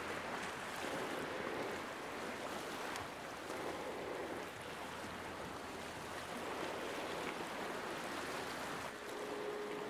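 Sea surf washing against coastal rocks: a steady rushing that swells and eases gently.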